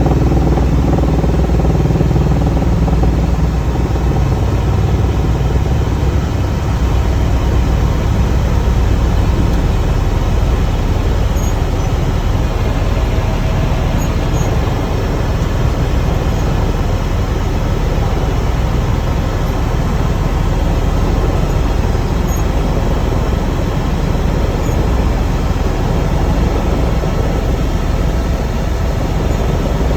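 Helicopter engine and rotor noise heard on board during the ride: a loud, steady drone.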